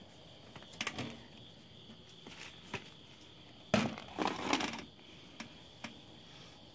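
Raccoons crunching dry cat kibble: a few scattered crunches, then a louder run of crunching about four seconds in.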